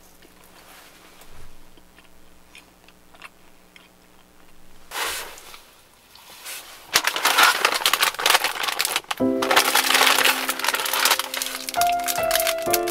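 Thin plastic snack wrapper being unwrapped by hand, crinkling loudly and continuously from about seven seconds in, with faint scattered clicks before it. Background music comes in around nine seconds.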